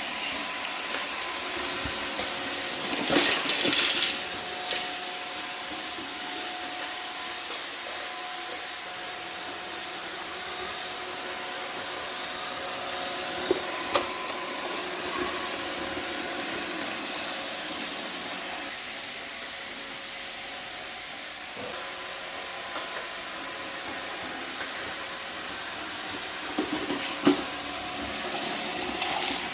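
iRobot robot floor cleaner running with a steady whir, broken by a few short knocks and clatters.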